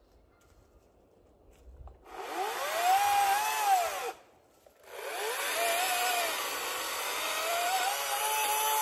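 Echo 18-inch battery-powered chainsaw: its electric motor whines up and winds down about two seconds in, then starts again about five seconds in and keeps running, dipping slightly in pitch as the chain cuts into the fallen pine.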